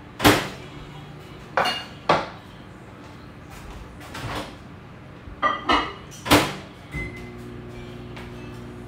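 Dishes and plates knocking and clinking on a kitchen counter: a string of sharp clatters, several close together around the middle. Near the end a short beep sounds and a steady low hum starts.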